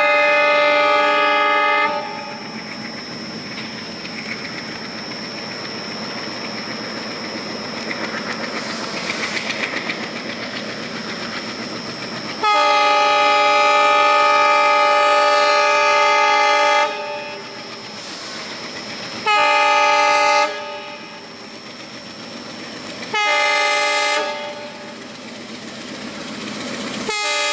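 WDM 3A diesel locomotive's air horn sounding in repeated blasts. The first lasts about two seconds, a longer one of about four seconds comes midway, then two short blasts follow, and another begins near the end. Between the blasts, the heavily loaded freight train's engine chugs and its wagons rumble along the rails.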